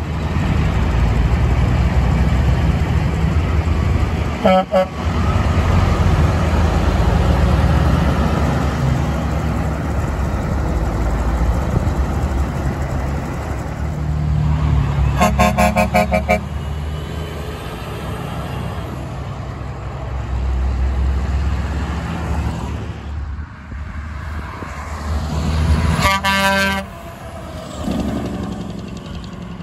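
Heavy diesel trucks running past, with truck air horns blown three times: a short blast about four and a half seconds in, a longer chord about fifteen seconds in, and another near the end. The last is from an International 9900 dump truck's Grover 2000 and 2001 air horns, whose trumpets are fouled.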